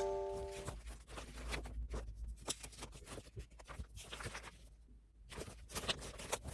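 Faint, irregular clicks and taps, like small objects being handled in a small room. The held notes of music die away in the first second.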